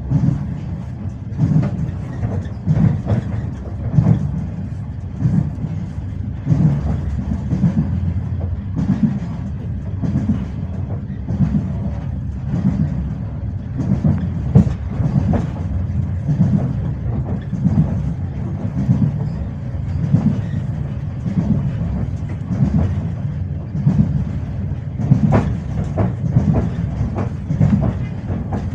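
Passenger train wheels clacking over rail joints while the train runs at speed: repeated knocks, some in close pairs, over a steady low rumble.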